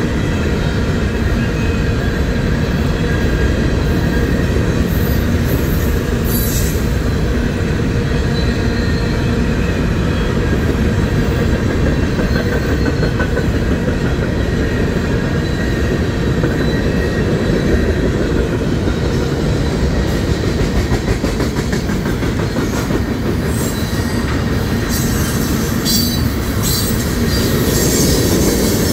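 Freight cars rolling past close by: a steady rumble and clatter of steel wheels on the rail, with a faint high wheel squeal at times.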